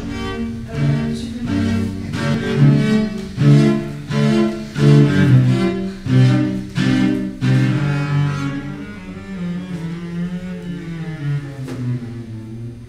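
Solo cello improvising: a run of short, separate bowed notes in the low register, about two a second, then from about eight seconds in longer held notes that waver in pitch and grow quieter.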